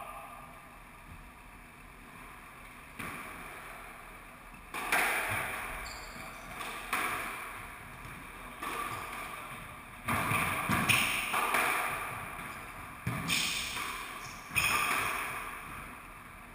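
Squash rally: racket strikes and the ball smacking the walls of the court, each hit ringing out in the enclosed court. The hits start about three seconds in and come roughly a second apart.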